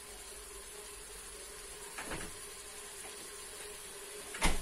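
Frozen chopped onion sizzling softly in hot oil in an electric multicooker pot, with a steady hum underneath. Two short knocks, one about two seconds in and a louder one near the end.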